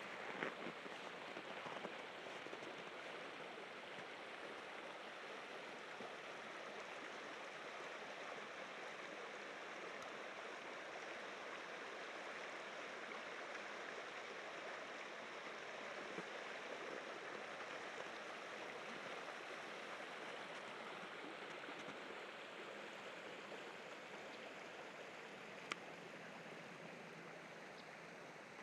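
Rushing water of river rapids: a steady, even noise, with a single sharp click near the end.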